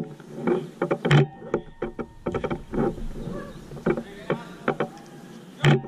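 Sounds of a mini-soccer game on artificial turf: irregular thuds and knocks of the ball being played and players' feet, the loudest about a second in and near the end, with brief voices from the players.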